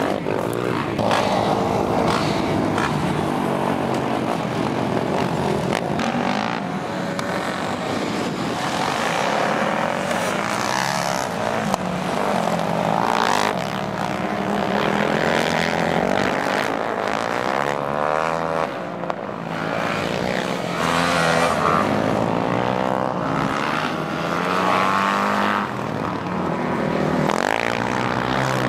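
Several motorcycle engines revving through the gears while racing on an ice track, their pitch rising and falling continually as the bikes accelerate out of turns and back off into them.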